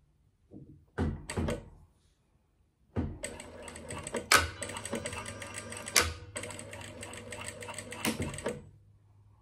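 Industrial sewing machine stitching in two fast runs of about three and two seconds, with a brief stop between them, ending shortly before the end. A few sharp knocks about a second in come before the stitching starts.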